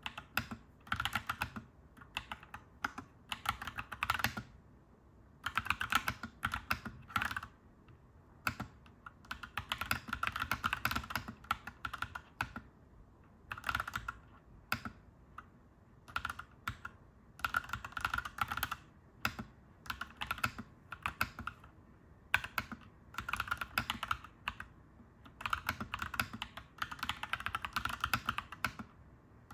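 Clacky mechanical keyboard being typed on, in bursts of rapid keystrokes lasting a second or few, separated by short pauses, over a faint low background hum.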